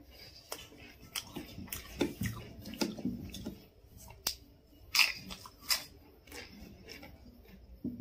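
Crisp fried egg papad crunching as it is bitten and chewed: irregular sharp crackles, the loudest about two and five seconds in.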